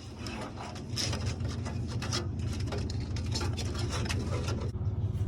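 Rubbing, scraping and light clicks from hands working wiring and parts at the tail light, scattered irregularly over a steady low rumble.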